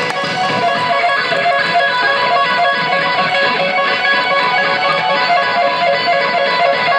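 Electric guitar solo played live on stage: a fast run of short, repeated notes.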